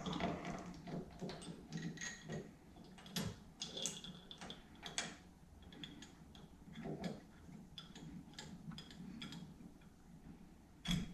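Light, irregular metal clicks and taps of a steering wheel puller's bolts being handled and threaded by hand into the steering wheel hub.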